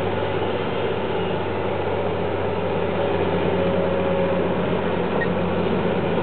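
Caterpillar tracked excavator's diesel engine running steadily as the machine slews its upper body and boom round, with a brief faint whine about three seconds in.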